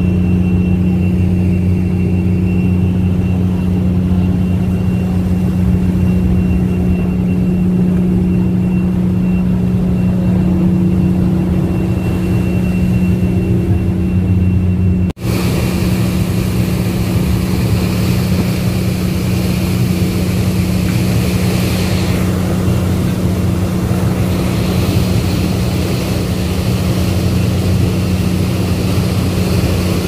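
Ship's engine droning steadily, with a faint steady whine above it. About halfway the sound breaks off for an instant, and then the rushing of the churning propeller wash at the stern is heard over the engine drone.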